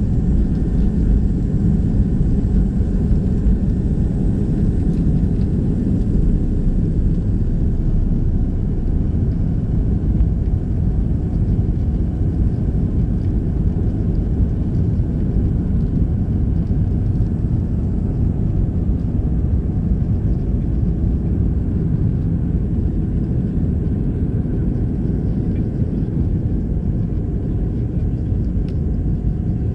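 Airbus A320-200's jet engines at takeoff thrust, heard inside the cabin as a steady, loud, deep roar while the airliner leaves the runway and climbs. The higher hiss thins out after about seven seconds.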